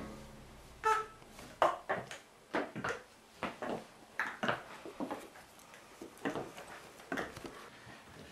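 A series of irregular sharp knocks and clatters, about a dozen over several seconds, the first few with a brief ringing tone about a second in.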